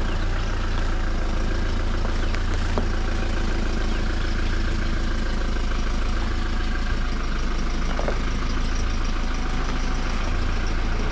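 Safari game-drive vehicle's engine running steadily at a crawl, a deep constant rumble.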